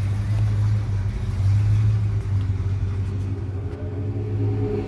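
The 318 V8 of a 1971 Brazilian Dodge Charger R/T idling steadily with a deep, even rumble.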